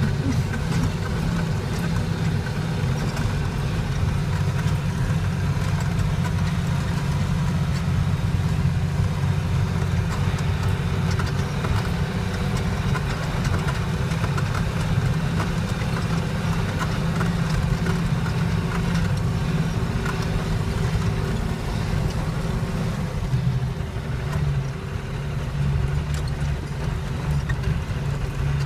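Off-road vehicle's engine running steadily, heard from inside the cab as it climbs a rough, rocky track, with light knocks and rattles from the bumpy ground.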